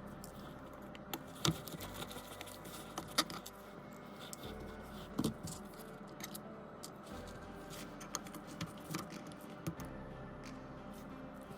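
Scattered light clicks and taps of small tools and phone parts being handled on a workbench, at irregular intervals, over a faint steady background hum.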